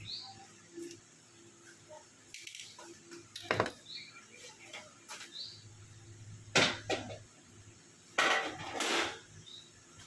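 Metal tools clinking and knocking as they are handled, three sharp knocks, then a hiss of about a second near the end.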